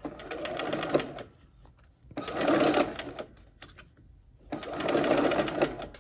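Sewing machine stitching a curved seam in quilting fabric in three short runs of about a second each, stopping between them. It stops with the needle down so the fabric can be eased around the curve and kept clear of the pins.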